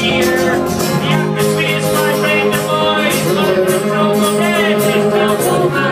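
A live band playing, with a man singing into a microphone over electric guitar and a steady percussive beat.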